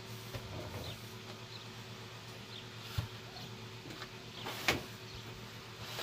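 Handling sounds from a video cable being worked into the ports at the back of a desktop computer: faint scraping, a short low knock about three seconds in, and a sharp click a second and a half later as the plug goes in.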